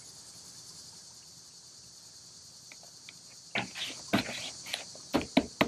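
Hands pressing potting soil and handling a small plastic nursery pot: scattered soft knocks and rustles begin about three and a half seconds in. Underneath is a steady high chirring of insects.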